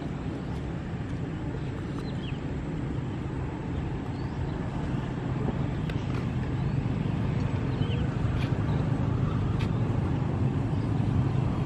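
Radio-controlled North Star seaplane's motor droning in flight, a steady low hum that grows gradually louder.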